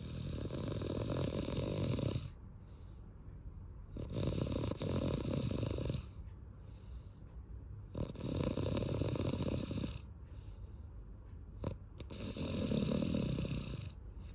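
A small child snoring in a steady rhythm: four long snores, each about two seconds, one every four seconds, with quieter breathing in between.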